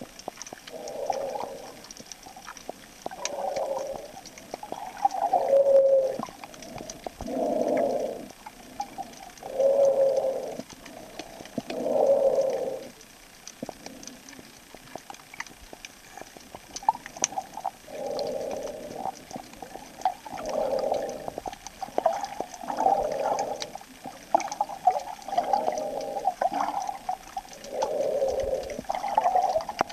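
A swimmer's breathing heard underwater, muffled and rhythmic: a breath about every two seconds, with a pause of a few seconds about halfway through before the breaths resume.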